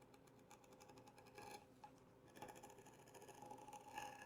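Faint, irregular scraping and crackling of a sharp knife slicing lengthwise through a heavy-duty rubber garden hose. It comes in short rasps, a brief one about a second and a half in and a longer run from about two and a half seconds on.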